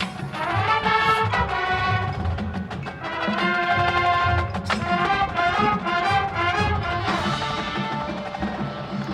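Marching band playing: massed brass chords over drumline and mallet percussion.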